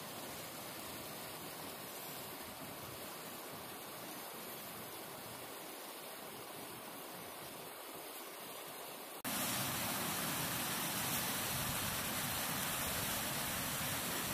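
Steady rush of creek water flowing over rocks. About nine seconds in it cuts abruptly to a louder, fuller rush.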